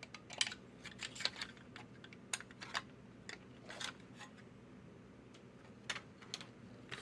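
Light, irregular plastic clicks and taps as the plastic body and base of a diecast model truck are handled and worked on.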